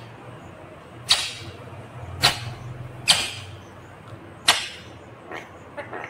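Indian ringneck parakeet making four loud, sharp, harsh sounds about a second apart while working at a plastic pen with its beak, with fainter ones near the end.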